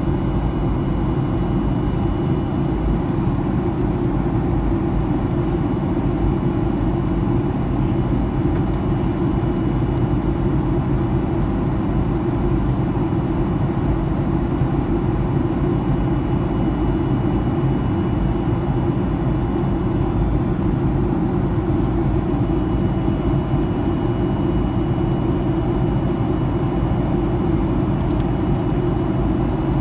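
Airliner cabin noise in flight: a steady low rush of engines and airflow through the fuselage, with a faint steady high whine above it.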